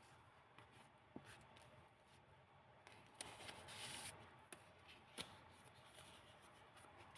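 Faint paper handling as pages of a handmade storybook made from old book pages are moved and turned: light rustling with a few soft clicks, and a longer rustle about three to four seconds in.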